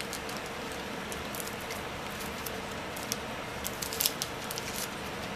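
Scattered small clicks and crinkles over a steady room hiss and faint hum, the loudest cluster about four seconds in, as gloved hands handle something small close by.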